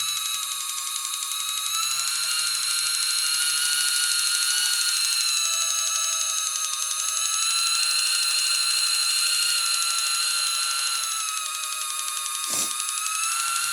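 Motorized automatic can opener running as it cuts its way around the rim of a can: a steady high whine with fast ratcheting clicks from its gears. A single sharp click comes near the end.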